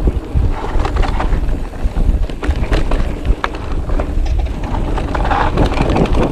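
Mountain bike (an e-mountain bike) riding fast down a rough dirt trail: wind buffeting the microphone under a steady clatter of tyres, chain and suspension over bumps, with one sharp knock about three seconds in.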